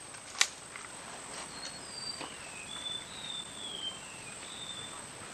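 A bird singing a series of short whistled notes, several sliding downward, over a steady high thin whine and outdoor background hiss. A single sharp click about half a second in is the loudest sound.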